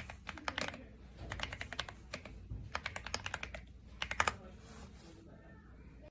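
Typing on a Womier SK71 mechanical keyboard with pre-lubed linear switches: quick runs of key clicks in several short bursts, stopping about four and a half seconds in.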